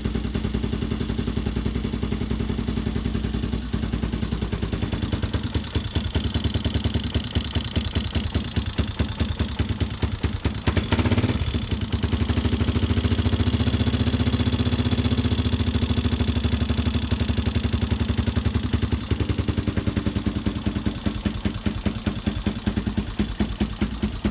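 Suzuki DR650's freshly rebuilt single-cylinder engine idling, with a steady clicking from the valves, which have a few millimetres of extra clearance from being adjusted on the wrong stroke. About halfway through the revs rise briefly, then settle back to idle.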